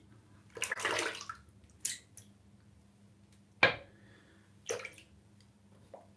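Water splashing in a filled bathroom sink as shaving lather is rinsed off, in several short splashes, with a single sharp knock about midway.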